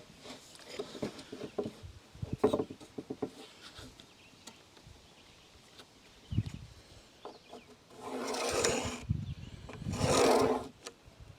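Light knocks and handling on a countertop, a single thump, then two rasping rubs about a second long each near the end.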